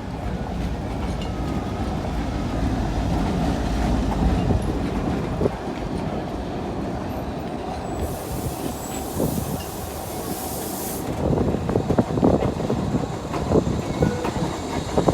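Train running on rails: a steady low rumble of wheels, a hiss lasting about three seconds from roughly eight seconds in, then sharp clicks and knocks of the wheels over the track near the end.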